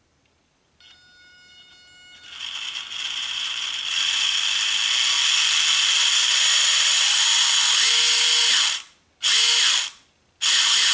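A WLtoys K969 1/28-scale RC drift car's brushed motor and four-wheel-drive gears whine at full throttle, wheels spinning freely in the air. The whine starts about a second in, climbs in steps to full speed and holds, then cuts off and returns in two short blips near the end.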